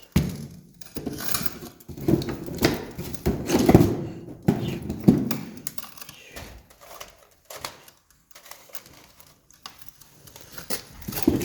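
Wood campfire crackling, with sharp pops and snaps throughout. Several louder dull knocks come in the first half and again near the end.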